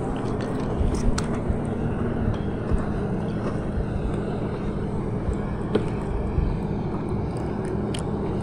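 Steady low rumble of wind on the microphone over open water, with a few light clicks and taps from handling the fishing rod and a small landed fish.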